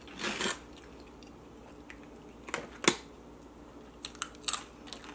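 Tortilla chips being eaten: a short rustle near the start, then one sharp loud crunch a little past the middle and a few lighter crunches of chewing near the end.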